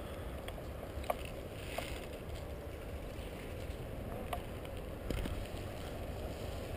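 Steady low rumble on a GoPro's microphone while the wearer holds still, with a few faint sharp clicks.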